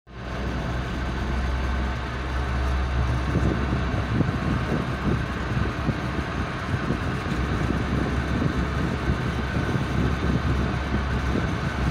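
Chairlift running along its cable: a steady low hum and rumble with a rough crackle over it.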